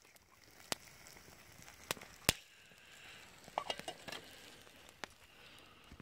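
Wood campfire crackling with a few sharp pops, over a faint sizzle of raclette cheese melting in a pan at the edge of the fire.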